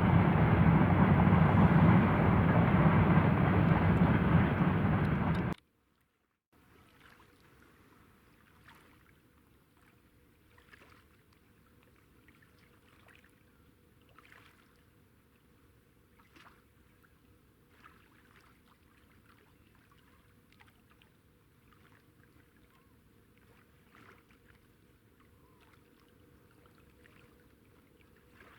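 Loud, steady rumble of a freight train rolling over the rail bridge, which cuts off abruptly about five seconds in. After a second of silence comes a much quieter stretch with a faint steady hum and soft, faint sounds every second or two.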